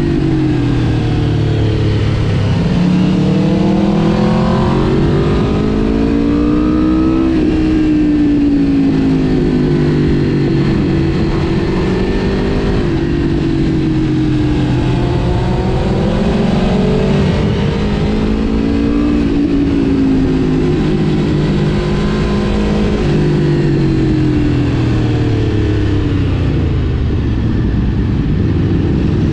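Aprilia RSV4 Factory's V4 engine under way, its pitch climbing and dropping again and again as the bike accelerates and rolls off, over a steady rushing noise.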